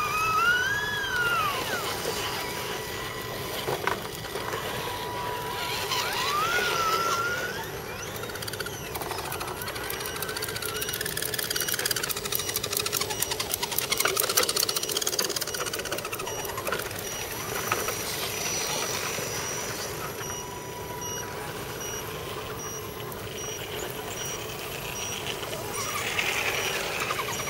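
Electric motors of radio-controlled scale crawler trucks whining, rising and falling in pitch with the throttle as the trucks crawl over rock. A stretch of rapid ticking comes about halfway through.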